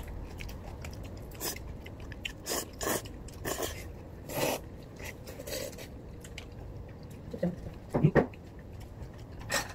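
Close-up eating sounds: a person chewing and biting a home-made kongguksu noodle meal, with scattered short crunches, slurps and clicks. A couple of louder short sounds come about eight seconds in.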